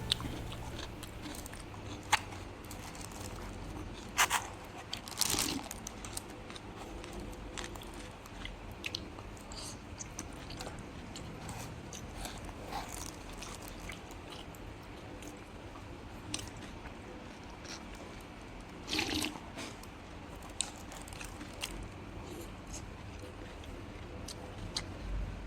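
Close-miked eating: a person chewing mouthfuls of Cambodian chicken curry rice noodles (num banh chok). There are soft wet chewing clicks throughout and a few louder crunchy bites about 2 s, 4 to 5 s and 19 s in.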